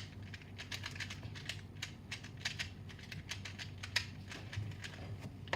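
Plastic Shizheng 2x2 speedcube being turned fast by hand: an irregular run of light, quick clicks as the layers turn and snap into place.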